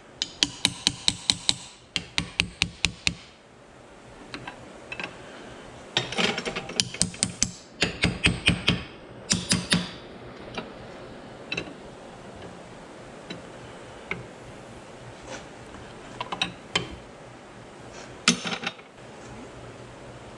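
Ratcheting wrench clicking in quick runs of several strokes while turning a bolt on a power steering pump, in bursts during the first half. Later only scattered light metal ticks and clinks of the tools.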